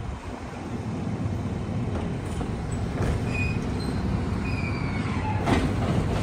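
Rear-loading garbage truck's engine running steadily while its hydraulic cart tipper lifts and dumps a wheeled trash cart, with short high squeaks and a single knock about five and a half seconds in.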